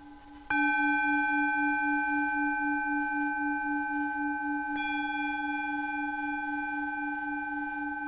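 A ringing metallic tone tuned to the Mars and synodic Moon planetary frequencies, struck about half a second in and struck again nearly five seconds in. It rings on with several overtones and an even pulsing beat in its lowest note, fading only a little.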